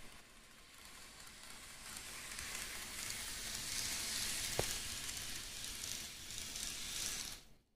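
N-gauge model of a Nishitetsu 3000 series train running on desktop track: a steady hissing whir of motor and wheels that grows louder as the cars pass close. There is a single sharp click about four and a half seconds in, and the sound cuts off suddenly near the end.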